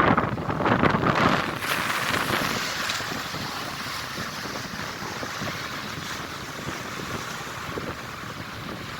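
Strong wind off the sea buffeting the microphone, loud gusts in the first couple of seconds easing into a steady rush.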